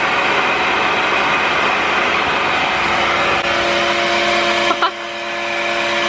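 Revair reverse hair dryer running: a steady rush of suction air over a constant motor hum as a section of wet curly hair is held drawn into the nozzle. About five seconds in there is a brief knock, and the sound then drops slightly.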